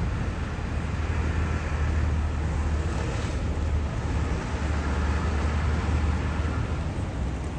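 Busy city street ambience: a steady low rumble of traffic noise, with a brief rise of hiss about three seconds in.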